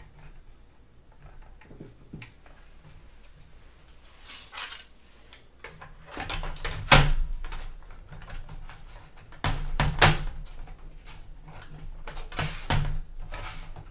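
Plastic laptop palm rest being pressed down onto the chassis by hand, giving a series of knocks and clicks as its plastic clips seat against the frame. Faint ticks at first, then sharper knocks, the loudest about seven and ten seconds in.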